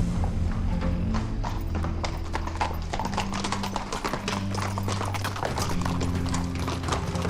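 Horses' hooves clattering in a quick, irregular stream over held low notes of background music.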